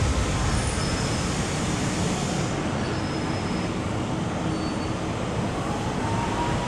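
MTR M-Train electric multiple unit rolling along the platform and slowing, heard through the platform screen doors as a steady rumble of wheels and running gear that eases off. A faint whine rising in pitch comes in near the end.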